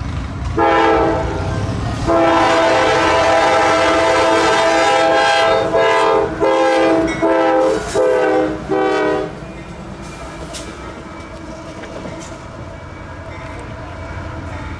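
Air horn on two diesel locomotives running light: a blast, then a long blast, then about five quick short blasts, all over the low rumble of the passing locomotives, which goes on after the horn stops.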